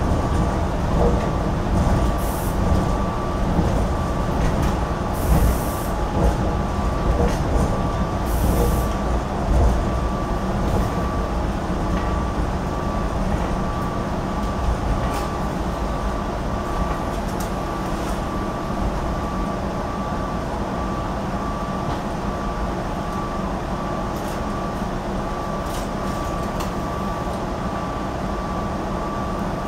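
Cabin sound of a SEPTA GE Silverliner IV electric commuter railcar slowing into a station: a steady running rumble with a faint steady high tone, a few brief clicks and hisses in the first ten seconds, growing gradually quieter as the train slows.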